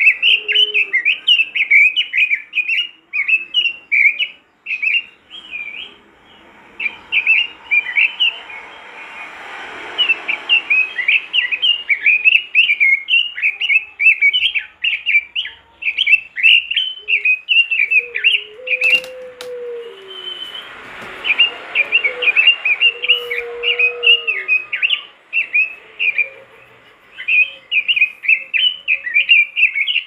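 Red-billed leiothrix (Pekin robin) singing vigorously: long runs of rapid, jagged chirping notes, broken by short pauses. A single sharp click sounds about two-thirds of the way through.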